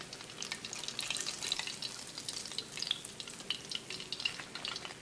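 Hot vegetable oil in an electric deep fryer sizzling, with a quiet, steady patter of small crackles and pops.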